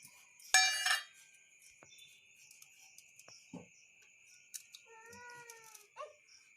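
A cat meowing: one loud meow about half a second in and a softer, drawn-out meow near the end.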